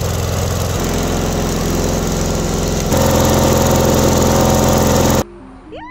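An engine running steadily under a loud hiss, in three short clips cut together. The last clip, from about three seconds in, is arc welding. The sound stops suddenly about five seconds in.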